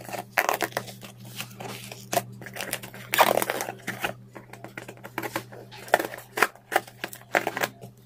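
Cardboard shipping box being torn open by hand: packing tape and cardboard flaps ripping and scraping in irregular strokes, loudest about three seconds in, over a steady low hum.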